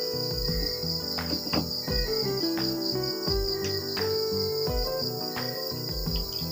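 Background music of sustained, stepping keyboard-like notes over a steady high chirring of insects, with a few short knocks.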